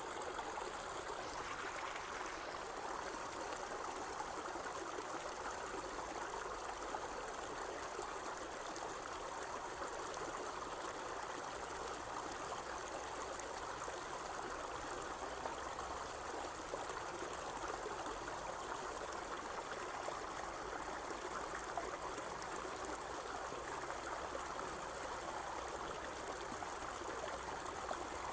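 Irrigation water flowing steadily through a field, a constant stream-like trickle.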